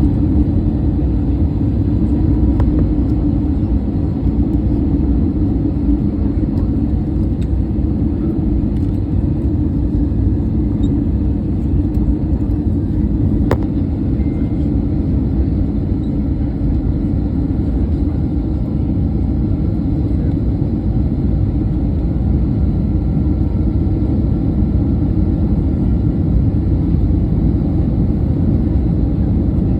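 Steady low rumble of a jet airliner's engines and airflow heard inside the passenger cabin on approach to land, with a single brief click about halfway through.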